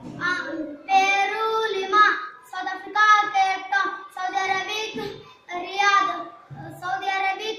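A boy singing solo and unaccompanied, in short phrases with some held notes.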